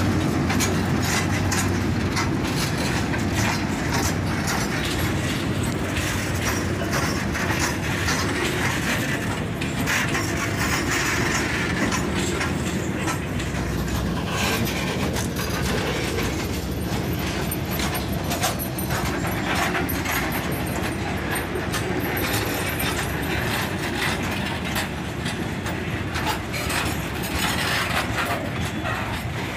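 Belgrano Cargas freight train wagons rolling past in a steady rumble, with the clickety-clack of the wheels striking the rail joints.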